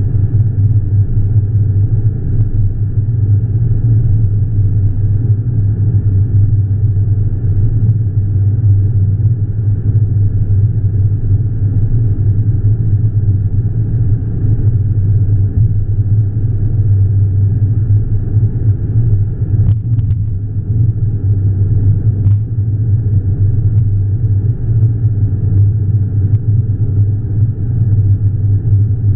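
Steady low road rumble of a car cruising at highway speed, heard from inside the cabin. Two faint clicks come about two-thirds of the way through.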